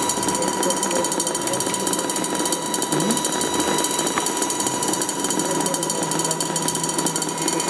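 Electronic oscillator sound from an electromagnetic sound-art installation: a dense, crackling, rattling buzz with a steady high tone under it, and a brief rising chirp about three seconds in.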